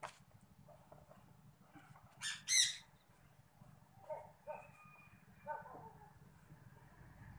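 Bird calls: two loud calls a little over two seconds in, followed by several softer, shorter calls, with a single sharp click at the very start.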